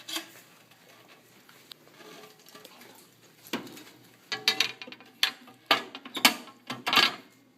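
Handling noise on a laminator as a part is fitted back on: a click at the start, then after a quiet stretch a quick run of sharp clicks, knocks and scratchy rustles in the last few seconds.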